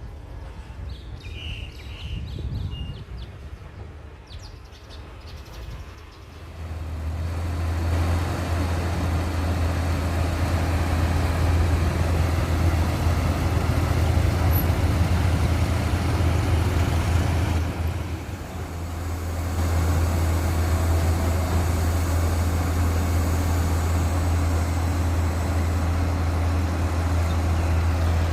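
Diesel engine of a Sunward SWDM 360H rotary drilling rig running. It is quiet at first, then a steady, heavy low drone builds about six seconds in, eases off briefly past the middle and comes back up.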